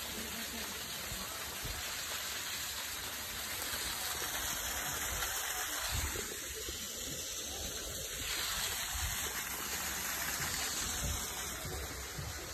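Steady rushing of a waterfall, an even hiss of falling water.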